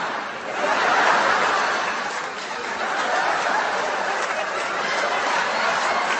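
Crowd of people laughing together, swelling about a second in and then carrying on steadily.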